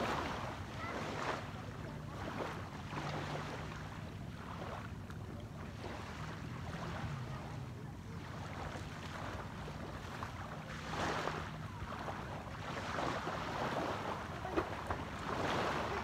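Sea waves washing on the shore, swelling several times, with wind buffeting the microphone and a faint low hum that comes and goes.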